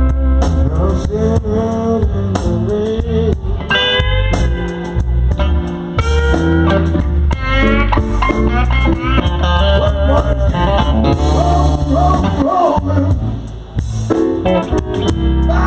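Slow electric blues band music: lead guitar playing bent-note fills between the vocal lines, over a steady bass line.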